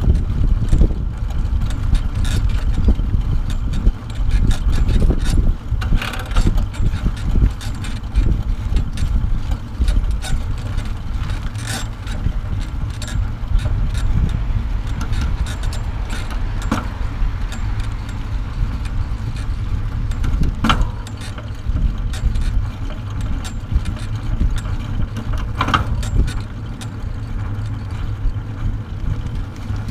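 Wind rushing over the microphone with a deep, uneven rumble from the bike trailer rolling on asphalt, and a few sharp clicks now and then.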